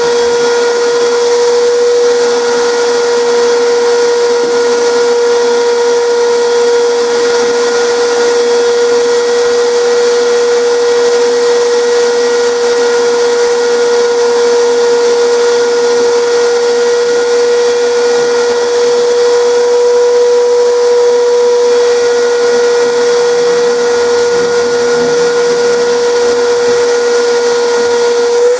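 Craftsman shop vacuum running steadily: a high, even motor whine over the rush of air as the hose sucks up fine demolition debris from the floor.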